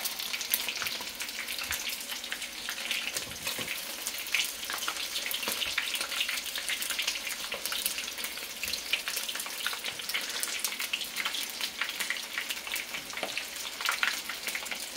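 Flour-coated chicken frying in a pan: a steady sizzle full of dense crackles and pops.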